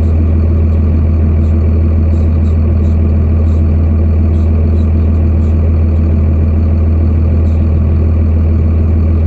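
Pickup truck engine idling with a steady low drone, faint light ticks now and then above it.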